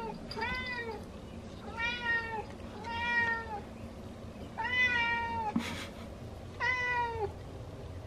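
Long-haired cat meowing repeatedly at a closed door, about six drawn-out meows a second or so apart, the loudest about five seconds in: it wants to be let outside.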